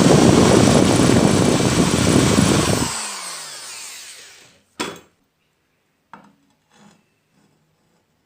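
An electric power tool runs loudly for about three seconds, then is switched off and its motor winds down with a falling hum. A sharp knock follows about five seconds in, then a couple of faint knocks.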